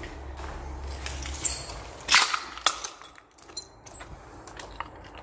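Footsteps and scuffs of someone walking out of a building over concrete and debris, with two loud sharp scrapes about two seconds in and a few lighter clicks after. A low rumble sits under the first second or so.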